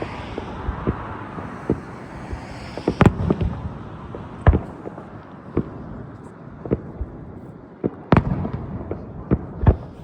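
Aerial firework shells bursting in an uneven series of bangs and booms, the biggest about three, four and a half, eight and nearly ten seconds in. A hissing crackle runs through the first three seconds.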